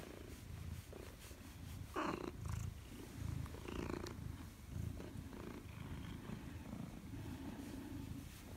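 Maine Coon cat purring while being stroked: a low, steady purr that pulses with its breathing, about once a second. A short louder sound comes about two seconds in.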